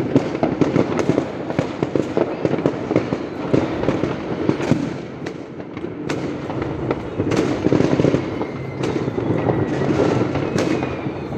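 Fireworks going off in a dense, continuous barrage of overlapping bangs and crackles, with a faint whistle in the later seconds.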